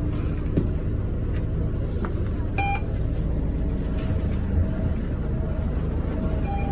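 Steady low rumble of a city bus's engine heard inside the cabin, with a fare-card validator giving a short electronic beep about two and a half seconds in and another near the end.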